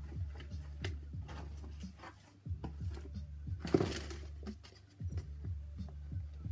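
A shoe and its paper wrapping being handled in a cardboard shoebox: rustling and light knocks, with a louder crinkle of paper about four seconds in as the shoe is lifted out. A steady low hum runs underneath.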